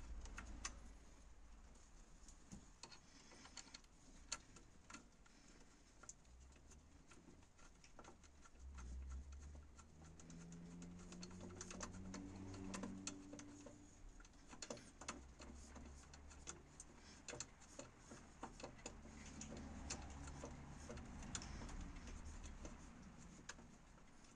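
Faint, scattered clicks and small metallic taps of hands and a tool working the EGR valve and its fittings, over a low rumble.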